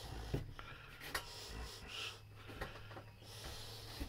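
Handling rustle from a hand-held phone being carried, with a few light knocks, over a low steady hum.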